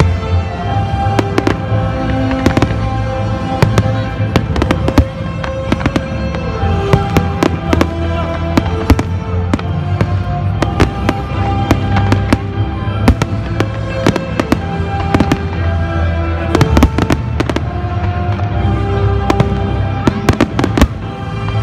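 Fireworks going off in many sharp, irregular bangs over loud music with a melody and heavy bass.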